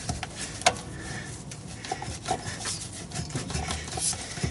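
Hand tools and carburetor parts being worked as a clamp is loosened: scattered small clicks and taps with rubbing, and one sharp click less than a second in.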